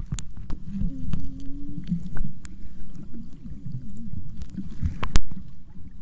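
Sea water heard with the microphone underwater: a low, muffled churning rumble with a few sharp clicks, and a short low hum about a second in.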